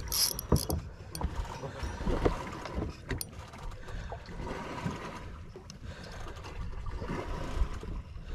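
Water and wind noise aboard a small fishing boat at sea, with scattered knocks and clicks from handling, a few of them in the first second.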